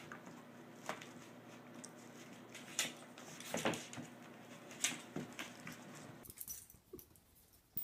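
A dog and a cat play-fighting: scuffling with scattered sharp clicks and knocks as they wrestle. The room noise drops away abruptly about six seconds in, leaving only a few faint ticks and one sharp click near the end.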